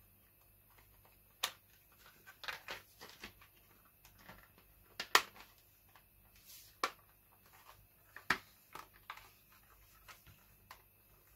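Plastic casing of a portable cassette radio being handled and pressed back together: scattered light clicks and knocks with bits of rustling, the sharpest click about five seconds in.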